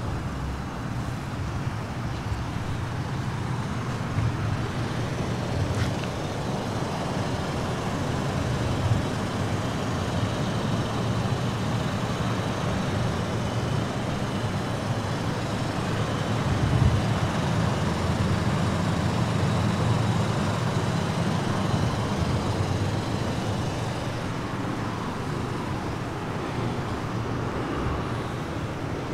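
Steady motor-vehicle noise: a low engine hum with road traffic around it, swelling a little past the middle.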